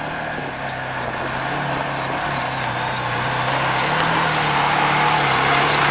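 Side-by-side off-road vehicle engine running steadily, growing louder as it approaches.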